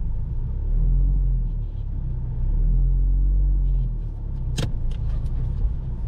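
Low rumble of a car, swelling twice, with a single sharp click about three-quarters of the way through.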